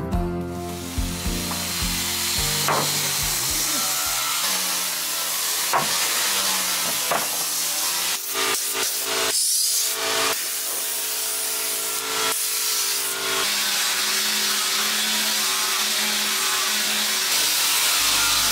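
Woodworking noise as purpleheart floor planks are worked: a steady hiss with a few sharp knocks, and faint background music underneath.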